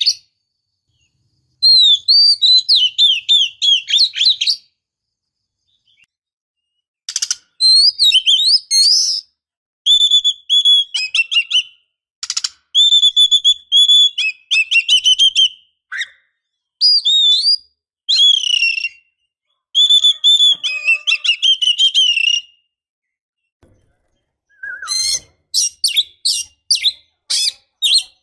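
Female oriental magpie-robin (kacer) singing in quick phrases of whistles and chirps, each a second or so to three seconds long, with short silent pauses between them and a run of sharp chirps near the end. It is a female in breeding condition, calling for a male.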